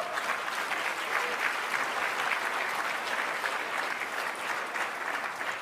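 Audience applauding: steady clapping that starts to die down near the end.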